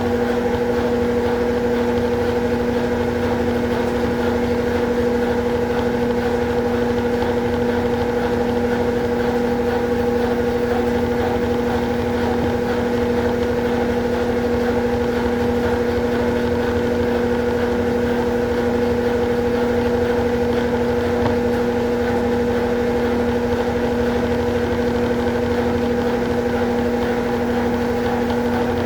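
Consul Facilite 11 kg (CWG11) washing machine running its rinse cycle: a steady motor hum with a constant tone and a low rumble beneath it.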